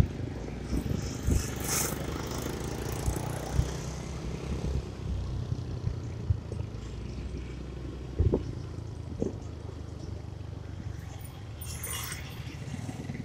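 Motorcycle on the move, heard from the rider's seat: a steady low engine and road rumble with a few short knocks from bumps, the clearest about eight seconds in.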